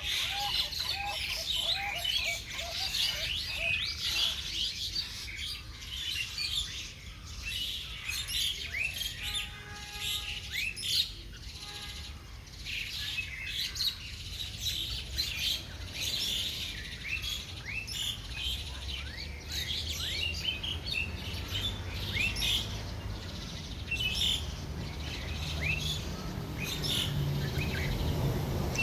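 Several small birds chirping and twittering, many short calls overlapping in quick succession, over a low steady rumble that grows stronger in the second half.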